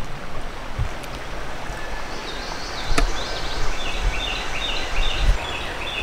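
Steady rush of creek water over shallow riffles, with low gusts of wind rumbling on the microphone. A single sharp click comes about halfway through, and in the second half there are short high chirps repeating several times a second.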